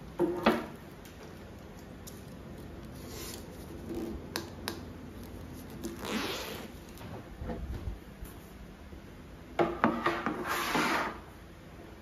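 The parts of a large picture frame being handled and fitted on a wooden table: the clear glazing sheet and fibreboard backing rub and scrape against the frame and tabletop, with a few light knocks. There are short scrapes in the first half, and the longest, loudest scraping comes near the end as the backing is laid in.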